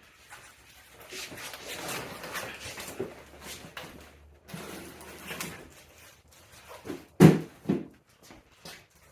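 Handling noises from bike assembly: irregular rustling and scraping, then two sharp, loud knocks about seven seconds in, half a second apart.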